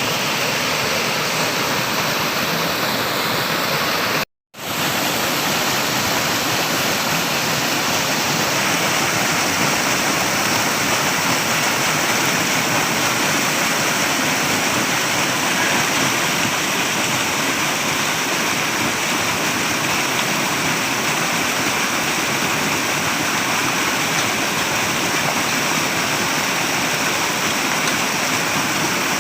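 Flowing water rushing steadily, a dense even sound of a stream or cascade. It cuts out completely for a split second about four seconds in, then carries on unchanged.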